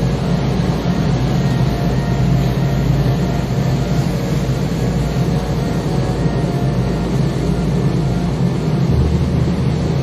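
Boat engine running with a steady low drone, under wind and sea noise on the microphone.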